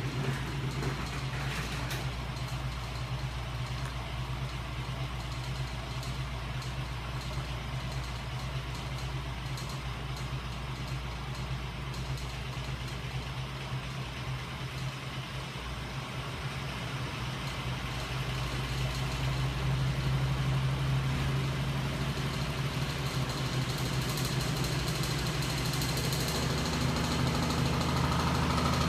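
Home-built rocker-and-flywheel 'magnet engine' rig, driven by a small electric motor, running with a steady low hum. It grows somewhat louder about two-thirds of the way through, and a higher tone joins near the end.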